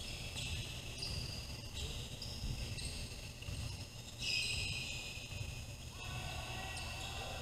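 Basketball gym ambience: a low rumble from the hall with a high, thin whine whose pitch shifts every second or so.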